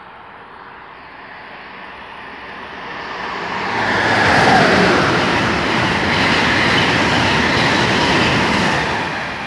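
Amtrak Northeast Regional train hauled by a Siemens ACS-64 electric locomotive running through at nearly 120 mph. A rising rush peaks as the locomotive passes about four seconds in, with a falling pitch, then the Amfleet cars rush past steadily and the noise eases off near the end.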